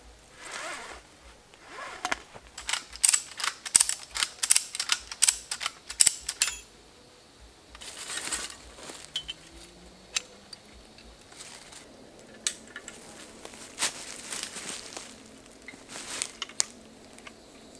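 A quick run of sharp metallic clicks and rattles for a few seconds, then scattered single clicks and rustling. This is ratchet-strap and come-along hardware being worked and hooked up to pull a fence brace upright.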